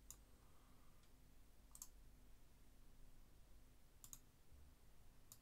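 Faint computer-mouse clicks against near silence: a single click, two quick double clicks about two seconds apart, then one more click near the end.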